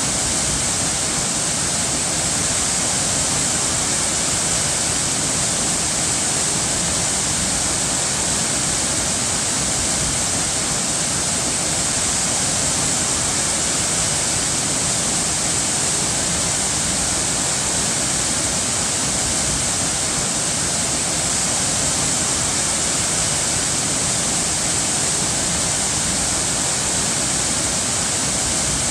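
Running water rushing steadily and evenly, a constant hiss without changes or separate splashes.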